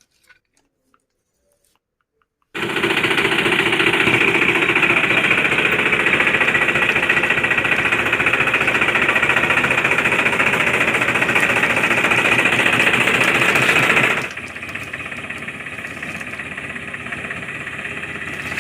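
A small motor-driven machine rattling with a fast, steady hammering, starting suddenly after about two and a half seconds of silence. About fourteen seconds in it drops to a quieter, steady running sound.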